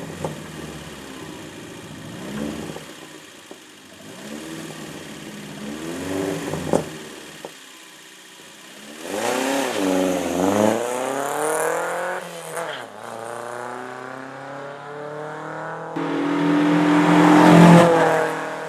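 A hill-climb race car's engine revving hard through gear changes, the pitch climbing and dropping with each shift. It grows louder, is loudest near the end as the car passes close, then fades suddenly.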